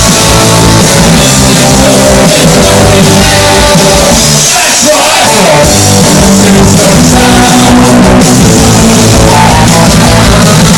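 Punk rock band playing live and loud: electric guitars, bass and drums with singing. The bass and drums drop out briefly about four seconds in, then come back.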